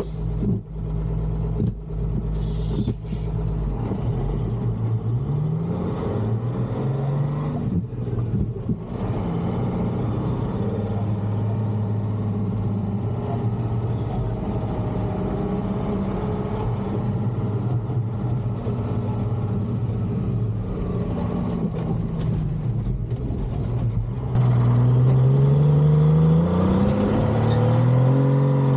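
Two-stroke Detroit diesel of a Peterbilt cabover truck running under load, its engine pitch climbing and dropping as it works through the gears. There are a few knocks in the first seconds, and it gets louder with a long climb in revs near the end.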